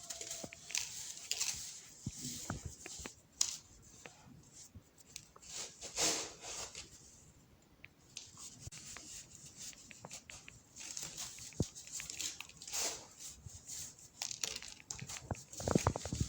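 Crumbles of powdered baking soda being crushed, with irregular crunching and crackling and a brief lull about halfway.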